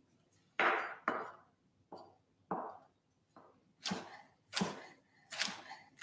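Kuma chef's knife slicing a jalapeño on a wooden cutting board: about eight separate chops, each a sharp knock of the blade striking the board, at an uneven pace.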